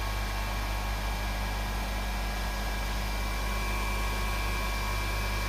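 Motorcycle brake shoe grinding machine running steadily: its electric motor and spinning grinding wheel give a constant hum with a thin, steady high whine.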